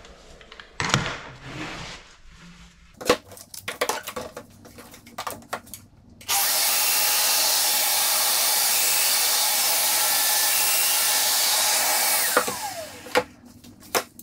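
Clicks and knocks as a board is clamped to a workbench with quick-grip bar clamps, then a Festool Domino joiner runs steadily for about six seconds, cutting mortises into the board, and winds down with a falling whine.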